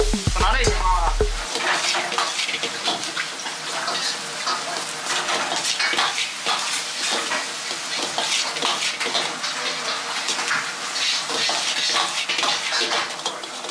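Metal ladle scraping and clanking against a wok in quick, irregular strokes as a big batch of fried rice is stir-fried, with the rice sizzling underneath.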